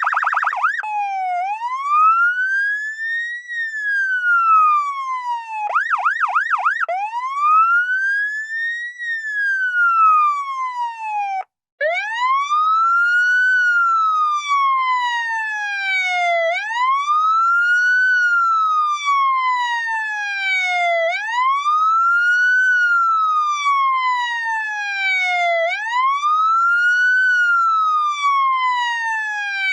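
Electronic police siren wailing in slow rising and falling sweeps, broken once by a quick burst of about four fast yelps. After a brief gap about eleven seconds in, a second police siren wails, each cycle rising quickly and falling slowly over about four and a half seconds.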